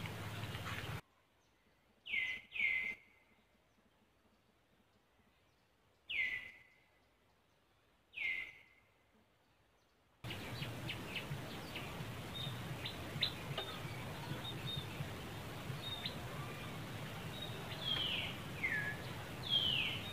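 Short high calls, about seven, each sliding quickly down in pitch, over a steady outdoor background hiss. The background drops out for several seconds near the start, leaving only the calls.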